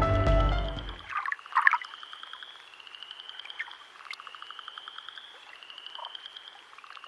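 Background music ends about a second in, giving way to a nature ambience of frogs calling. Repeated rapid trills, each about a second long, come every second and a half or so.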